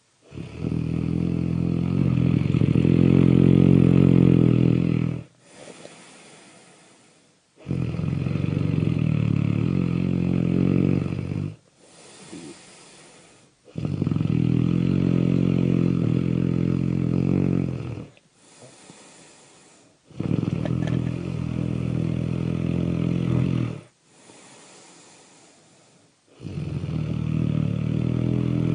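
Loud snoring, slow and regular: five long, loud inhaled snores of about four seconds each, one every six or seven seconds, with quiet breathy exhales between them.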